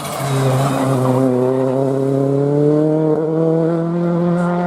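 Rally car engine accelerating hard, its pitch climbing steadily through a single gear.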